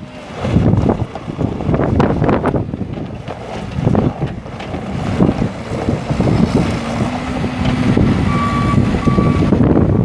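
Thomas 175 skid steer's Kubota four-cylinder turbo diesel running as the machine drives and turns, its revs rising and falling. Near the end its backup alarm gives two short beeps, signalling that it is reversing.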